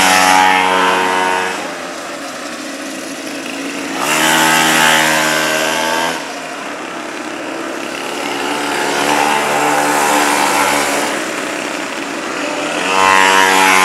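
Small engines of mini GP motorcycles revving as the bikes ride a cone course, swelling loud four times as riders pass close and fading between passes.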